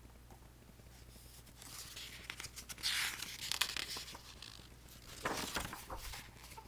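Paper rustling and crinkling as a picture book's page is handled and turned, in two stretches: a longer one starting about a second and a half in, and a shorter one about five seconds in.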